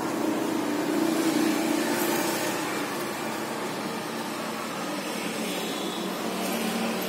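Steady mechanical drone with a low hum, a little louder about a second in.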